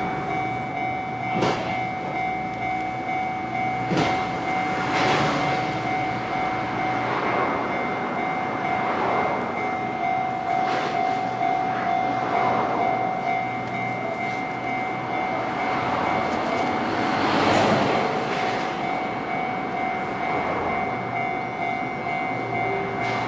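Level crossing alarm ringing steadily in two tones as a train runs through the crossing, its wheels clacking over the rail joints; the train noise swells loudest late on.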